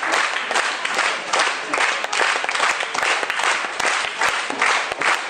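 Theatre audience applauding, many hands clapping densely and steadily.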